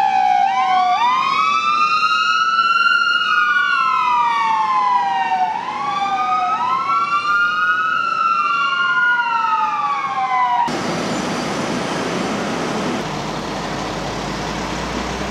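Ambulance siren on a wail, leaving code 3: the pitch rises quickly and falls slowly in two full cycles, doubled by a second sweep slightly out of step. It cuts off abruptly after about ten seconds, leaving a steady low rumbling hiss.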